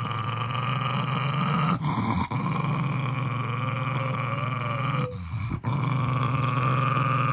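Jack Russell terrier growling low and long, guarding its stuffed toy against a reaching hand, with two short breaks about two and five seconds in.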